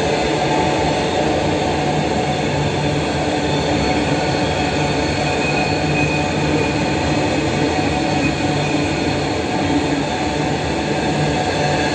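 Freight train wagons rolling past close by: a steady rumble and clatter of steel wheels on the rails, with a faint high wheel squeal near the middle.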